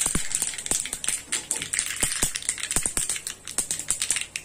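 Tadka sizzling in hot oil in a small pan: mustard seeds, sesame seeds and curry leaves spluttering, a rapid, irregular crackle of pops over a steady hiss.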